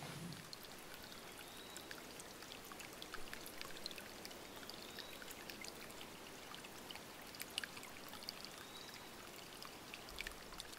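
Small woodland stream trickling and splashing over rocks, with scattered small drips and ticks of water.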